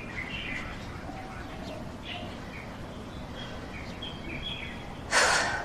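Birds chirping faintly with short, scattered high tweets over steady background ambience. Near the end comes a loud rush of noise lasting about half a second.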